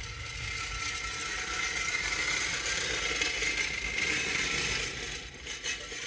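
Rapid mechanical ratcheting and clicking, steady for about five seconds and dying away near the end.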